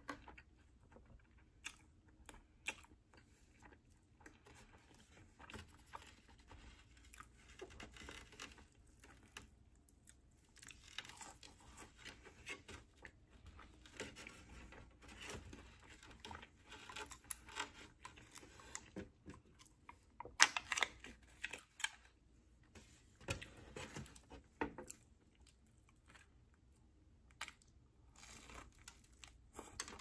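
Close-up eating sounds: chewing and wet mouth sounds, then the rustling, creaking handling of a foam clamshell food container, with many small clicks and one louder snap about twenty seconds in as it is opened and fried chicken is taken out.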